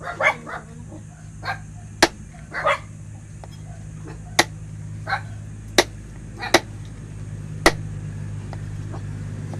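A dog barks a few times, mostly in the first three seconds, over a steady low hum. Five sharp knocks land about a second apart.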